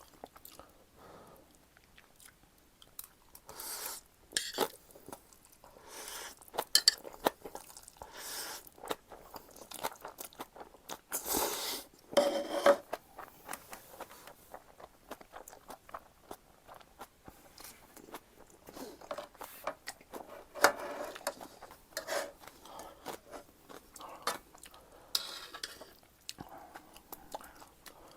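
Close-up mouth sounds of eating Chapagetti noodles and green-onion kimchi: irregular chewing and crunching, with occasional sharp clicks.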